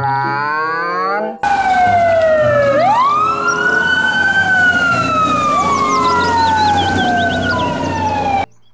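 Fire engine siren wailing. The pitch sweeps up quickly and falls away slowly, twice, over a low engine rumble, and cuts off suddenly near the end.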